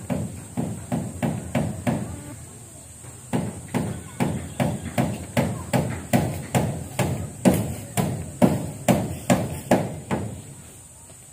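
A hand tool striking hard and repeatedly, about two to three blows a second, with a short break about two seconds in before the blows resume.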